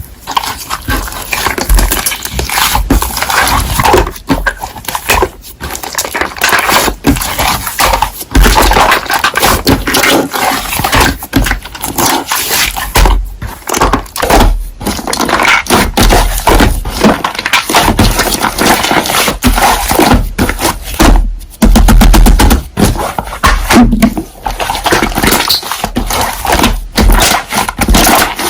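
Slime being kneaded and pressed by hand, making dense crackling and clicking with short pauses between handfuls.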